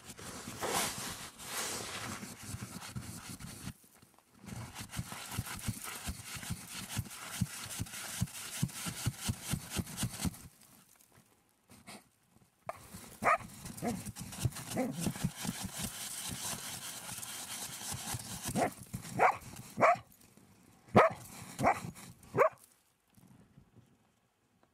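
Avalanche search dog digging into the snow over a buried person, heard from inside the snow hole: several seconds of fast, rhythmic scraping, then short rising barks and whines as it works down to the hole.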